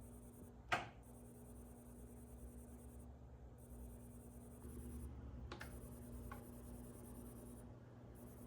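Fire alarm control panel's battery charging circuit giving off a faint steady hum as it starts charging new, low sealed lead-acid batteries. A sharp click comes under a second in, and two fainter clicks follow about five and a half and six seconds in.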